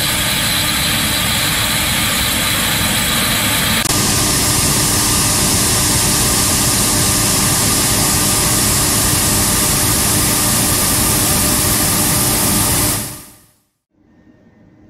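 Claas Lexion 570C combine harvester running at close range: a loud, steady engine and machinery noise with a strong hiss. The sound changes abruptly about four seconds in, a steady hum then sitting under it, and it fades out near the end, leaving only a faint background.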